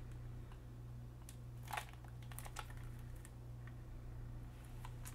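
Plastic cassette tape case handled in the fingers: a few faint clicks and taps, over a steady low hum.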